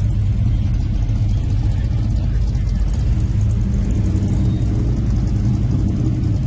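Car engine running at a steady idle, a low rumble that holds even.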